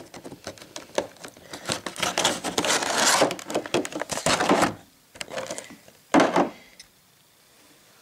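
Rustling and clicking of a model boxcar kit's packaging and small plastic parts being handled, busy for the first half, then two short rustles and quiet near the end.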